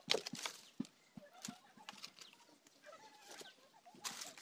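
Firewood sticks knocking and clicking in an open wood fire as it is tended, after a brief rush of noise at the start.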